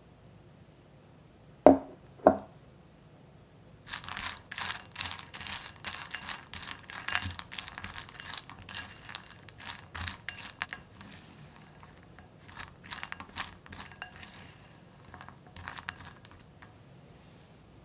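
Two sharp knocks about a second and a half in. Then a silicone spatula stirs caramelised almonds through melted dark chocolate in a glass bowl: quick, irregular clicking and sticky scraping of nuts against the glass, thinning out near the end.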